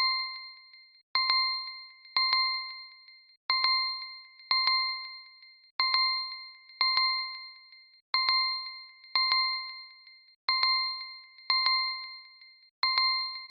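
Redmi Note 11 timer alarm ringing: a bell-like ding struck twice in quick succession, each one ringing out, the pair repeating about every two and a half seconds. It stops suddenly near the end.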